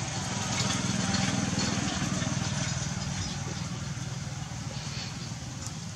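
A motor engine running steadily with a low hum, growing louder about a second in and then slowly fading.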